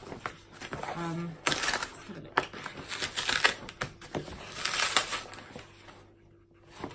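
Parcel packaging being torn and crinkled open by hand, in several irregular rustling bursts with small crackles.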